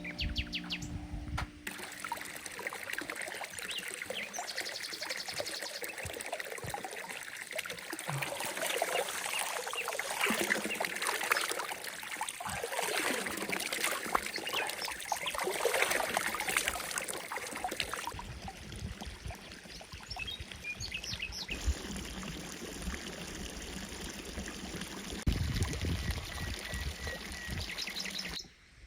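Birds chirping over a steady noisy hiss with dense fine crackles, cut into a few segments that change abruptly. Music fades out in the first two seconds.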